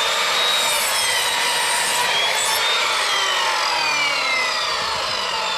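Electric sliding mitre saw running and cutting through a timber post, its motor whine slowly falling in pitch under the load.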